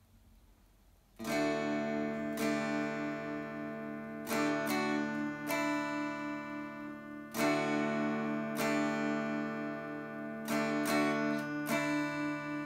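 Electric guitar playing a song intro: chords struck one after another and left to ring, starting about a second in.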